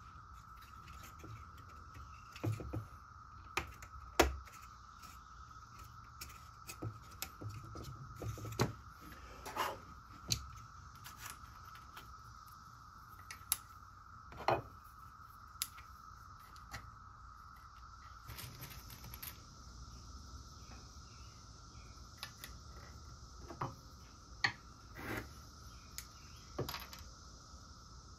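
Irregular light clicks and taps of small walnut kumiko pieces being handled, pressed into the lattice and pared with a chisel, the loudest about four seconds in. A steady faint high tone runs underneath.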